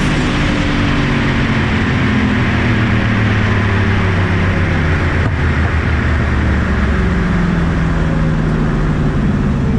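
Drag car's engine running hard at high revs under load, a loud steady sound whose pitch drifts slowly.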